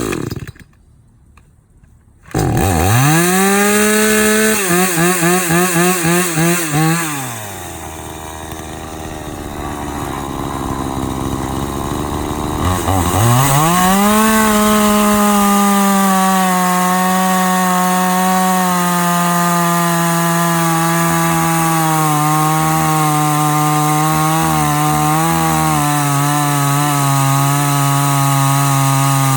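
Chainsaw on an Alaskan chainsaw mill starting up about two seconds in and being blipped several times. It drops back to idle, then is throttled up to full revs about thirteen seconds in and held there, its engine speed slowly sagging as it works through the log.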